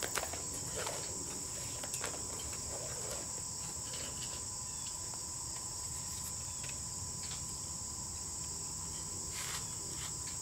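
A steady, high-pitched chorus of trilling insects, with faint rustles and light taps of nylon cord being wrapped around a wooden pole.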